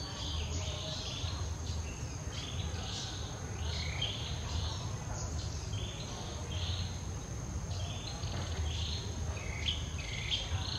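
Insects buzzing in a steady, high, unbroken drone. Short high chirps repeat every half second to a second over it, above a low steady rumble.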